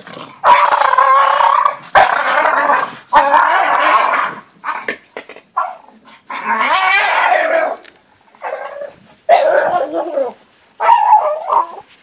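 Staffordshire bull terriers growling in play as they go after a coconut, in growls of about a second each, repeated about six times with a few short sounds between.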